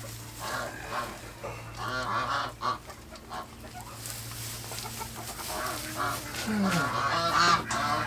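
Farm poultry calling: many short, repeated, overlapping calls, over a steady low hum.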